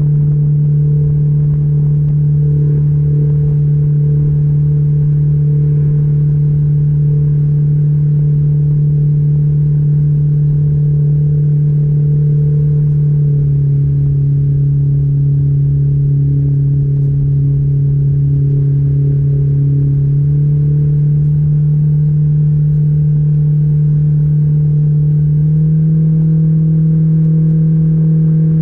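Mercury 60/40 jet outboard driving an aluminium jon boat at a steady cruise. The engine note holds steady, dips slightly about halfway through, then rises again twice near the end with small throttle changes.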